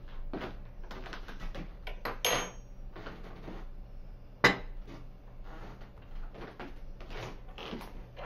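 Dishes and cutlery clattering on a table, with a clink about two seconds in and a sharp knock about four and a half seconds in as a plate is set down.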